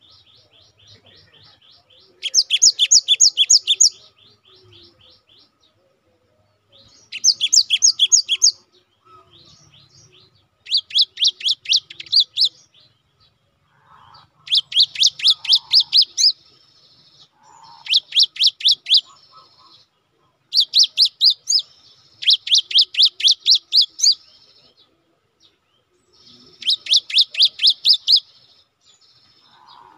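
Cinereous tit (gelatik batu) singing: eight bursts of rapid, evenly repeated high notes, each one to two seconds long, separated by short pauses filled with softer twittering.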